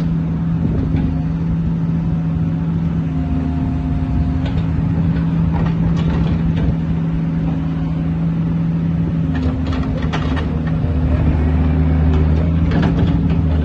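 Bobcat E45 mini excavator's diesel engine running steadily while the boom and bucket are worked, with scattered metallic knocks and a brief whine about three seconds in. The engine grows a little louder near the end.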